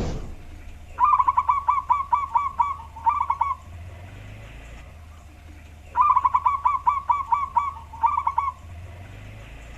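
Male zebra dove (perkutut) singing: two bouts of its rapid staccato cooing, each a quick run of about eight notes ending in a short group. A brief thump at the very start.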